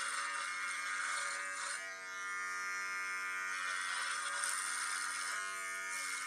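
Cordless electric beard trimmer running with a steady buzz, its cutters rasping through beard hair as it is drawn along the jaw.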